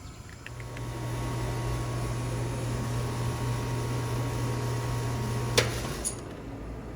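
Outdoor air-conditioning condensing unit running: a steady low hum with fan air noise. A sharp click comes about five and a half seconds in, and the hum stops just after it.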